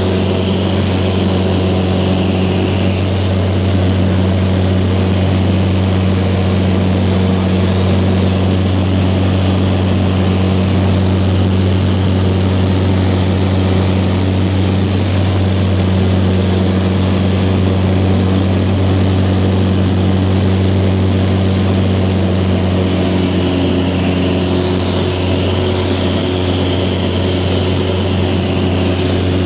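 Light aircraft's engine and propeller, heard from inside the cabin, droning steadily in flight as an even, low hum.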